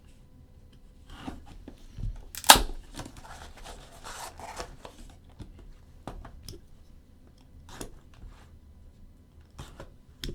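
Sealed trading-card box packaging being opened by hand. A sharp snap comes about two and a half seconds in, then a stretch of tearing and rustling wrap, with scattered clicks and taps.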